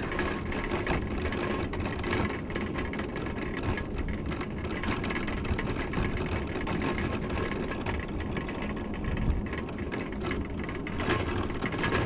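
Electric mobility scooter driving along an asphalt road: a steady whir of the drive motor over the rumble of its tyres on the pavement.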